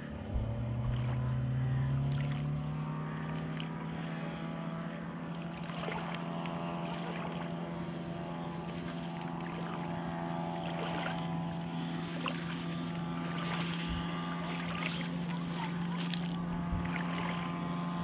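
A motor's steady drone, climbing in pitch over the first two seconds and then holding level, with occasional short knocks.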